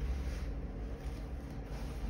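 Steady low background hum, with no distinct click or knock standing out.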